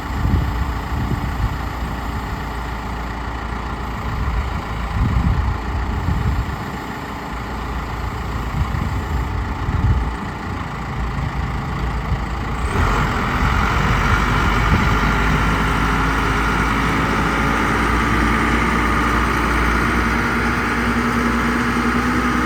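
Case 580 Super L backhoe's four-cylinder diesel engine running at idle, then speeding up sharply about thirteen seconds in and holding a steady higher speed.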